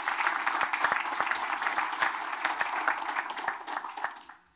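Audience applauding, many hands clapping together; the applause fades out near the end.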